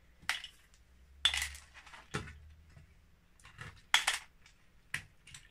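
LEGO bricks being pulled apart and dropped into a plastic tub, several sharp plastic clicks and clatters at irregular intervals, the loudest about a second in and again about four seconds in.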